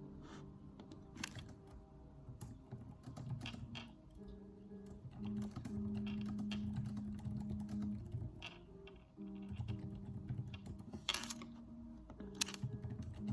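Typing on a computer keyboard: irregular, scattered keystrokes and clicks, over soft background music with sustained low notes.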